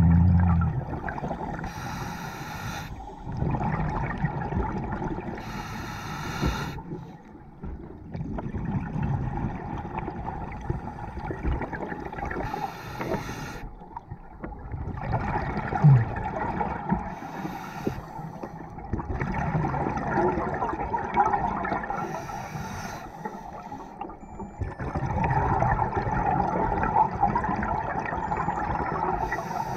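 Scuba diver breathing through a regulator underwater: a steady gurgling of bubbles, broken every few seconds by the loud rush of a breath.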